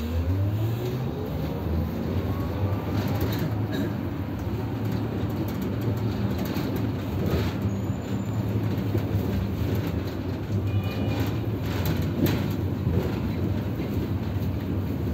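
Electric city bus heard from inside the cabin: the drive motor's whine climbs in pitch during the first second or two as the bus accelerates, then settles into a steady hum under road rumble. A few sharp rattles and knocks from the cabin break in.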